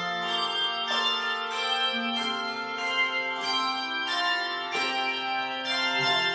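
Handbell choir playing a tune: chords of bells struck about every half second to second, the notes ringing on and overlapping.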